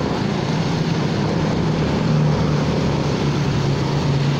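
Honda Forza 300 scooter's single-cylinder engine running at a steady cruise, a constant low drone under a steady hiss of wind and tyres on the wet road in the rain.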